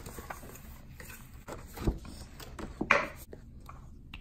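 Handling noises as a glass ink bottle is picked up and worked by hand on a desk: light taps and clicks, a dull knock about two seconds in, and a short, louder scrape about a second later.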